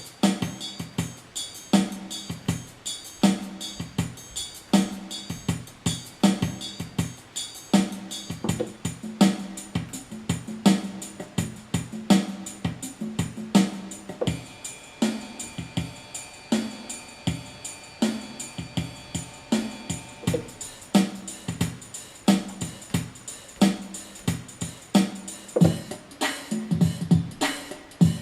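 Yamaha PSR-350 keyboard playing its built-in 16-beat accompaniment style: a steady electronic drum-kit pattern of bass drum and snare. Held notes sound for several seconds in the middle, and the drumming gets busier near the end.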